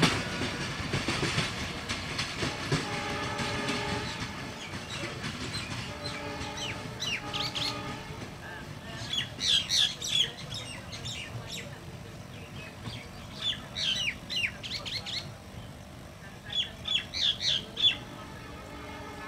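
Passenger coaches rolling away on the rails, their wheel clatter and rumble fading over the first few seconds, with a brief steady tone about three seconds in. Then a bird calls in quick runs of sharp, downward-sliding notes, four or five bursts a few seconds apart.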